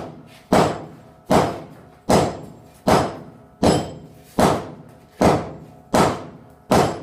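Sledgehammer blows in team striking on a hardy tool at the anvil: a slow, even rhythm of about one strike every 0.8 seconds, nine in all, each a sharp metal impact with a short ring.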